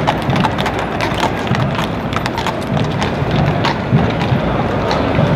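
Several shod horses walking on street pavement, their hooves clopping in an irregular patter of sharp clicks over a steady background of street noise.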